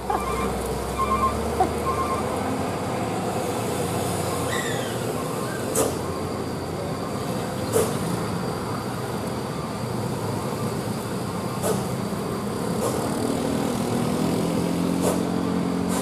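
Loaded cargo truck working slowly through a steep hairpin bend, with steady engine and road noise from it and the traffic following. Several brief sharp sounds stand out a couple of seconds apart, and a lower engine hum swells in near the end.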